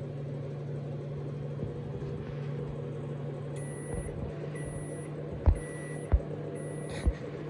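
Samsung microwave oven running with a steady low hum that dies away near the end. From about halfway come short high beeps about once a second, and there are three dull thumps near the end.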